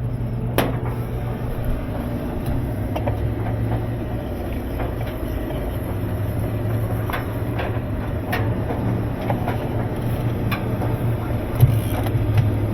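A wrench being worked on washing machine parts, giving a few scattered faint clicks and taps over a steady low hum.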